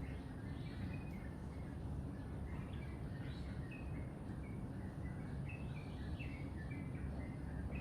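Several small birds chirping in short, quick repeated notes, over a steady low background rumble.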